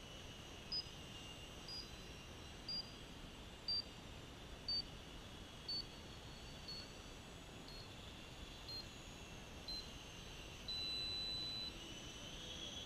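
Electronic countdown timer beeping: ten short high beeps about a second apart, each a little lower than the last, then one long beep that marks the end of the countdown. The faint wavering whine of small electric model airplanes runs underneath.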